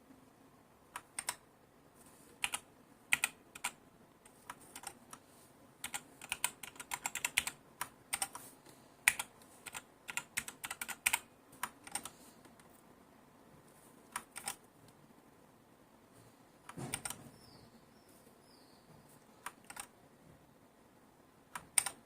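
Keys of a Ziyoulang T60 mechanical keyboard with linear red switches being pressed in irregular spurts, quick runs of clicks mixed with single keystrokes, with one duller knock about two-thirds of the way through.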